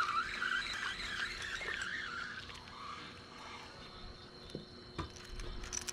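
Spinning fishing reel being cranked in, its gears whirring with a pitch that wavers up and down with each turn for about the first two and a half seconds, then a couple of light clicks near the end.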